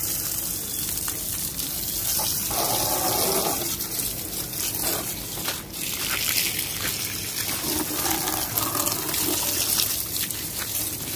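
Water spraying steadily from a hose while a motorcycle is washed.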